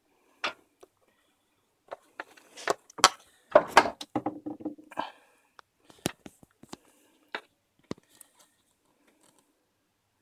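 Scattered clicks, taps and short scrapes of small hard objects being handled, busiest in the middle of the stretch and thinning out to a few faint clicks near the end.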